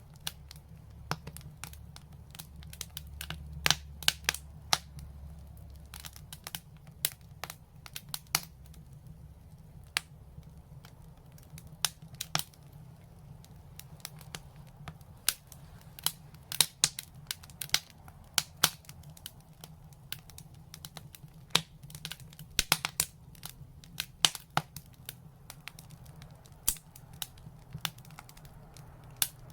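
Wood fire in a fireplace crackling, with irregular sharp pops, some much louder than the rest, over a steady low rumble.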